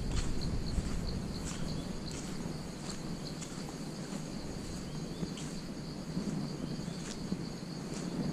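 Crickets chirring in a steady, high, continuous tone, with scattered soft rustles of footsteps through grass and dry leaves.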